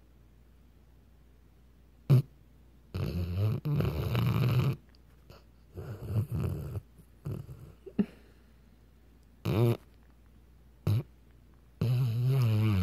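Weimaraner snoring: after a couple of seconds of quiet, a run of irregular snores, some short and some over a second long, several with a low pitched tone.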